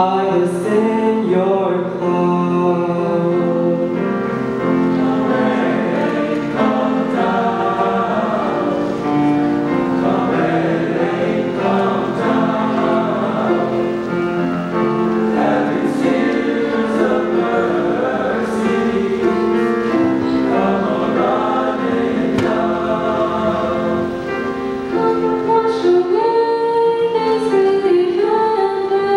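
Mixed choir singing a gospel-style choral song in parts, with a solo voice sung through a handheld microphone over the choir.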